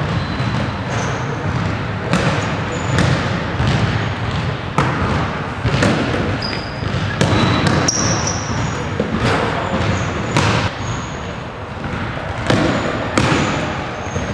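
Basketball thudding on a hardwood gym floor and being caught, with sharp, irregular impacts about one to two a second. Short high squeaks of sneakers on the hardwood come in between.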